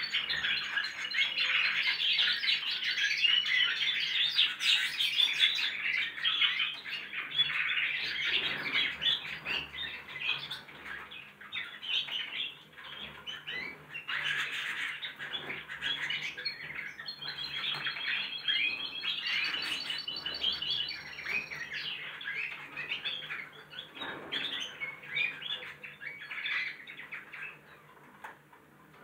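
Several young goldfinch × canary hybrid birds twittering together in continuous practice song, with a few rapid high trills in the middle. The chatter thins out near the end.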